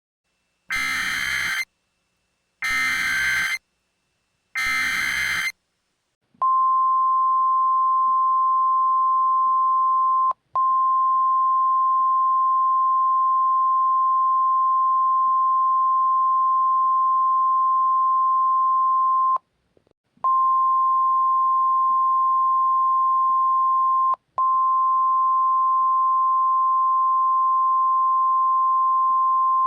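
Emergency Alert System SAME header: three short bursts of warbling data tones. They are followed by the NOAA Weather Radio 1050 Hz warning alarm, one steady high tone that breaks off briefly three times and carries on to the end.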